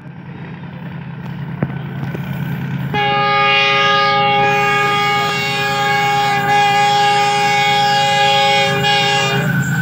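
Approaching locomotive, its low rumble growing steadily louder, then one long, steady horn blast starting about three seconds in and stopping shortly before the end.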